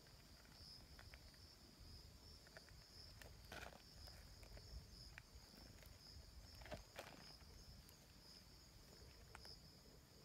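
Near silence with a faint, steady high insect trill, broken by a few soft rustles about three and a half and seven seconds in.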